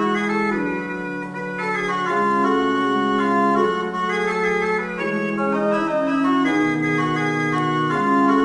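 Organ music playing slow, held chords that change every second or so.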